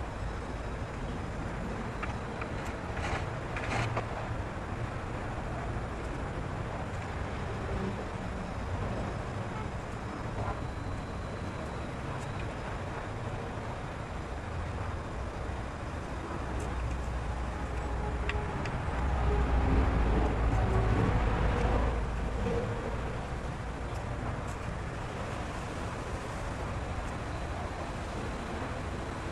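Steady distant road traffic as outdoor background, swelling louder with a low rumble for a few seconds about two-thirds of the way through as a vehicle passes.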